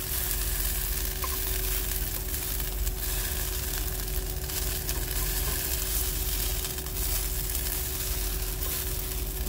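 Shredded hash browns sizzling steadily as they fry in a skillet, with a spatula scraping and turning them in the pan.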